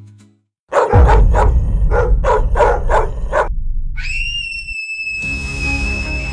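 A dog barking about seven times in an even rhythm over a low bass rumble, then a whistle-like tone that rises quickly and holds steady for about two seconds as background music comes back in.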